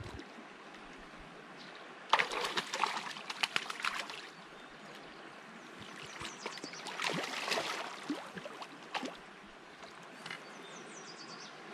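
Splashing in shallow creek water as a hooked brown trout is landed by hand, in two bouts of a couple of seconds each, over the steady trickle of the stream.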